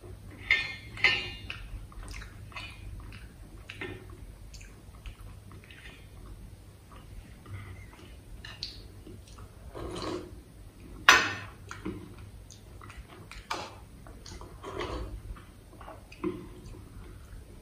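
Stainless steel bowls clinking and scraping against a steel thali as fingers wipe out the last of the food, close to the microphone. Scattered short clinks and knocks, the loudest about eleven seconds in.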